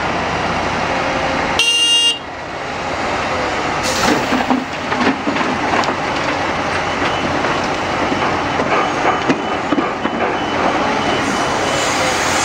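Liebherr 946 hydraulic excavator's diesel engine running under load as it tips a bucket of soil into a Tatra dump truck's steel bed, with irregular thuds and knocks of falling earth. A short horn toot sounds about two seconds in.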